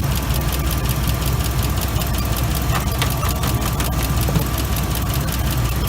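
2005 Ford F-150's engine idling steadily with the air conditioning running during a refrigerant recharge, with dense fine ticking and a thin steady whine over the engine.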